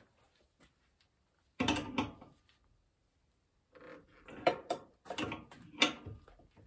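Steel screw jacks being cranked up under the floor beams: metal clanks and ratcheting clicks, a short bout about a second and a half in, then a denser run of clanks from about four seconds.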